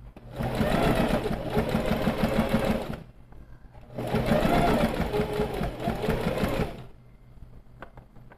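Sewing machine stitching a straight seam in two runs of about three seconds each, with a pause of about a second between them.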